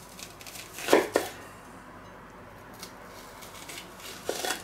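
Kitchen knife slicing an onion into fairly thick rings on a wooden cutting board. The blade knocks on the board in short strokes: two close together about a second in, a faint one later, and a few more near the end.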